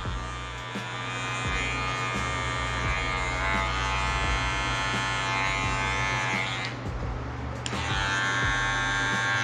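Electric hair clipper buzzing steadily as it cuts short hair at the nape.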